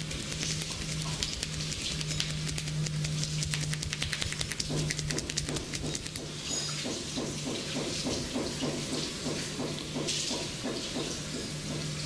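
Hair being washed and scrubbed at a barber's sink: water running, with fine wet crackling in the first half and, from about halfway, quick rhythmic scrubbing strokes, several a second. A low hum comes and goes underneath.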